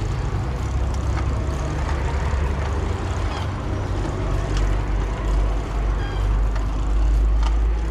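Steady low rumble of street traffic, louder near the end. Over it are a few faint clicks as the bicycle's pedal crank is turned by hand, with the drive not catching.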